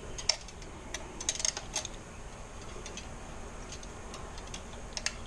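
Irregular light clicks and taps of a wire hook being worked up through a motorcycle's frame under the fuel tank to fish a cable through, with a quick flurry of clicks about a second in.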